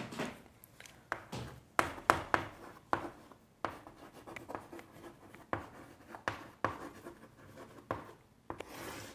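Chalk writing on a chalkboard: short, irregular taps and scratching strokes as words are written.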